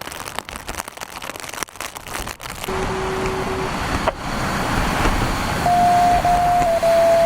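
Road vehicle noise on wet streets, with a scatter of clicks early on. Two steady electronic-sounding tones stand out: a lower one for about a second around three seconds in, and a higher, louder one from about six seconds on.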